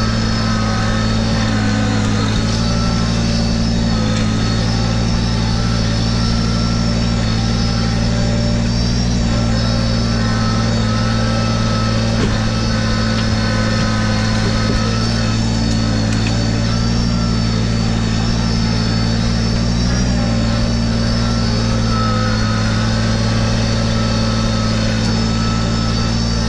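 Kubota BX1880 compact tractor's three-cylinder diesel engine running steadily at an even speed while the tractor is driven, with a thin high whine over the engine note.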